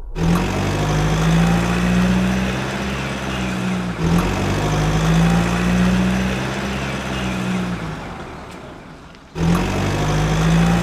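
Truck engine sound effect running with a steady low hum that rises in pitch each time it starts. It breaks off and starts again about four seconds in, fades, then comes back in near the end.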